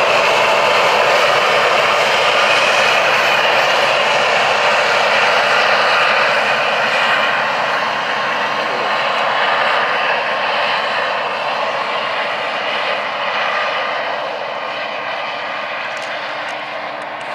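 Diesel locomotives of a Canadian National freight train passing and pulling away, their engines running steadily over the rumble of the freight cars, slowly fading as they recede.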